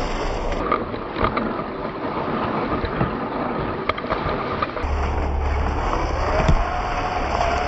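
Traxxas TRX4 scale RC crawler driving over dirt and grass: a steady rough rumble of drivetrain and tyres with a few sharp knocks. From about two-thirds of the way in, the electric motor whines, rising in pitch and then holding steady.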